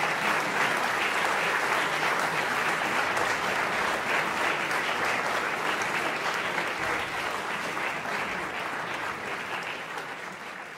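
Audience applauding, dense and steady clapping that slowly dies down near the end.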